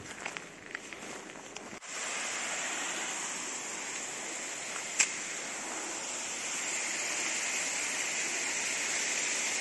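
A few footsteps and handling knocks, then from about two seconds in a steady hiss of falling water, broken by one sharp click about five seconds in.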